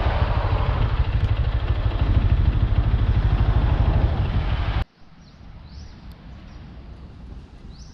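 Rumbling vehicle and wind noise, as from riding on a motorbike, which cuts off suddenly about five seconds in. Quieter outdoor ambience with a few short, high chirps follows.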